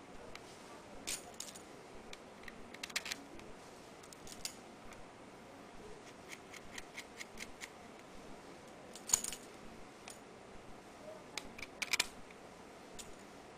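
Faint, scattered clicks and ticks of small screws and clear chip layers being handled and the screws fitted in by hand. A quick run of evenly spaced ticks comes around the middle, and two louder clusters of clicks later on.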